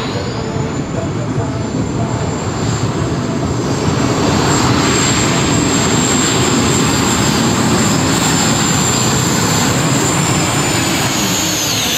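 Pulling tractor running at full power on a pull, a loud steady engine noise with a high whine above it. The noise grows louder about four seconds in, and the whine dips near the end.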